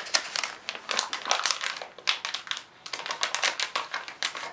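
Packaging crinkling and crackling in the hands as the Apple Thunderbolt cable is worked free of its plastic holder: dense, irregular crackles with two brief lulls, cutting off suddenly at the end.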